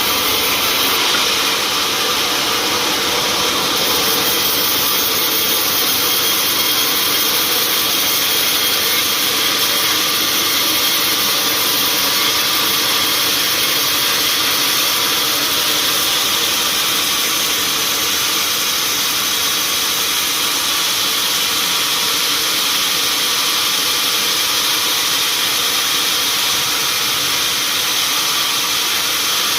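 Sawmill machinery running steadily: a loud, even mechanical noise with a faint hum that holds without a break.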